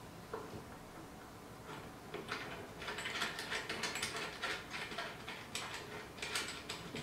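Multi-pin round connector of a laser's data cable being pushed into its socket and its threaded locking ring screwed down by hand: a rapid run of small clicks and scrapes, densest in the second half.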